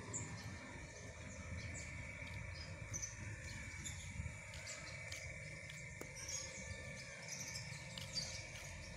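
Faint outdoor ambience: a steady insect drone with short bird chirps scattered through it, over a low background rumble.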